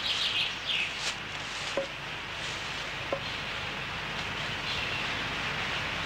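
Small birds chirping over a steady hiss, with three light knocks about a second apart in the first half.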